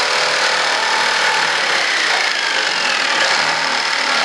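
Jigsaw running steadily, cutting through a sheet.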